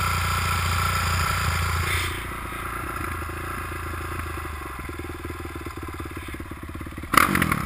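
Dirt bike engine running steadily for about two seconds, then dropping to a quieter idle with even firing pulses. A short loud burst comes near the end.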